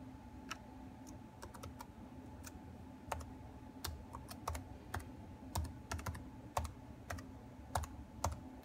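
Typing on an HP laptop's keyboard: a few scattered key clicks, then quicker, irregular keystrokes from about three seconds in, over a faint steady hum.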